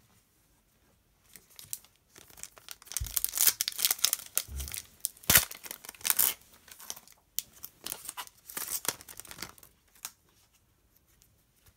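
A foil trading-card pack wrapper torn open and crinkled by hand, in a run of crackling tears that starts about two seconds in and stops shortly before the end.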